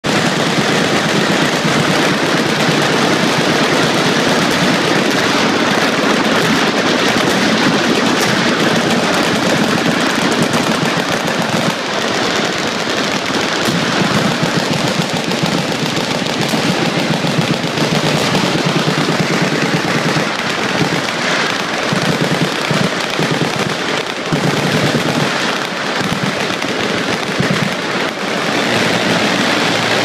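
Many machine guns firing at once, a loud, continuous, overlapping rattle of automatic bursts.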